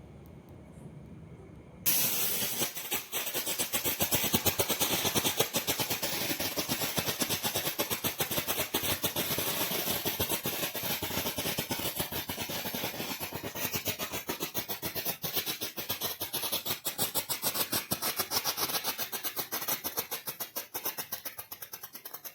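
Photo flash firework going off: a dense, rapid crackle of many small pops a second. It starts suddenly about two seconds in and runs on steadily until it stops just before the end.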